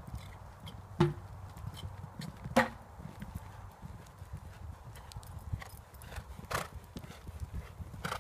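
Hoofbeats of a horse cantering on a sand arena surface, a run of soft strokes. Two louder sharp knocks stand out, about one second and two and a half seconds in.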